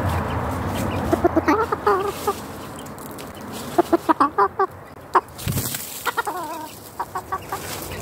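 Chicken clucking in quick runs of short notes, four bursts in all, after a rushing noise in the first second.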